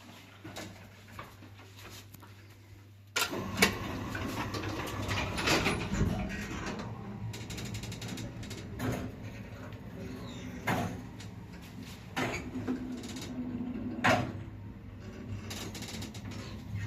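SLZ passenger lift's AS-72 electric motor starting with a sudden jump in level about three seconds in, then a steady hum as the lift runs, with several sharp knocks and clicks along the way.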